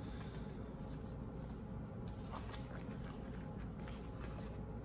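Faint rustling and a few light ticks of paper as a page of a large art book is handled and turned, over a low steady hum.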